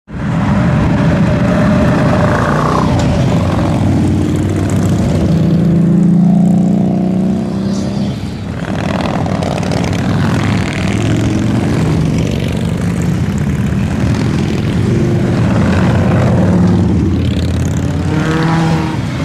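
Harley-Davidson motorcycle V-twin engine running loudly, its pitch rising and falling as it is revved.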